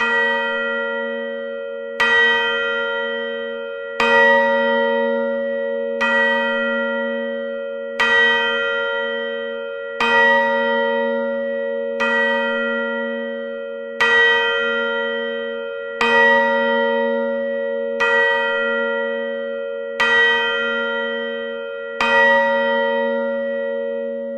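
A single deep bell striking midnight: twelve even strokes about two seconds apart, each ringing on and slowly fading into the next.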